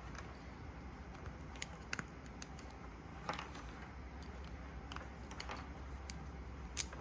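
Scattered small clicks and taps of plastic and a screwdriver tip as a Deutsch DT connector's locking tabs are pried and the connector is worked apart, over a low steady hum.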